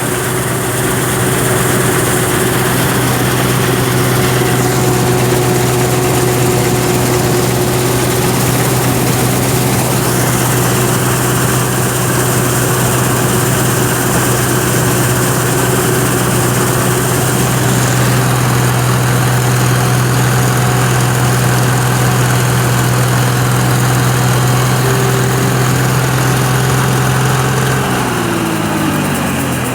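John Deere 955 combine harvester running steadily at high revs. Near the end the revs drop and the pitch falls.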